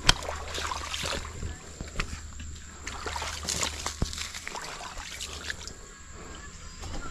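Shallow stream water splashing and sloshing at a muddy bank, with scattered sharp clicks and knocks throughout; a sharp knock just after the start is the loudest.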